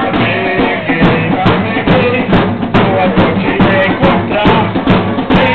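Loud carnival street-parade music: a steady drum beat, roughly three strokes a second, under a melody line.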